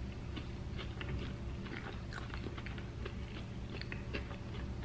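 Close-miked chewing of a mouthful of food with the mouth closed: soft, irregular small clicks and smacks.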